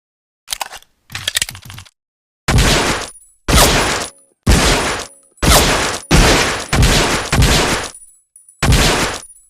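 M1911A1 .45 pistol: a couple of quieter mechanical clicks, then a string of about eight loud shots fired roughly a second apart, each followed by a ringing tail.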